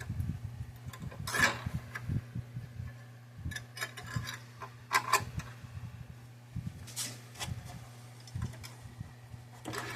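Scattered small clicks and rubbing as a plastic cable tie is pulled and cinched tighter around parts, over a steady low electrical hum.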